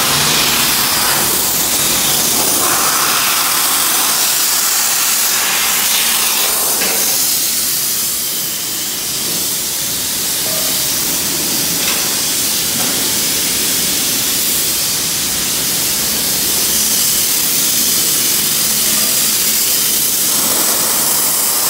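Sandblasting: a blast nozzle spraying abrasive on compressed air with a loud, steady hiss that dips slightly for a moment partway through.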